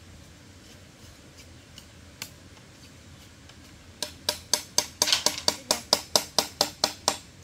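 A few faint taps, then a quick run of about fourteen sharp, bright knocks, about four a second, that stops abruptly.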